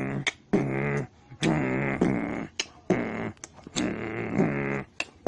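A person's voice making wordless vocal sounds, beatbox-style: a string of drawn-out pitched tones, each lasting under about a second, broken by sharp clicks and pops.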